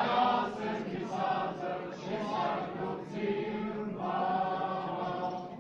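A group of voices singing a Czech folk song together in a steady run of phrases.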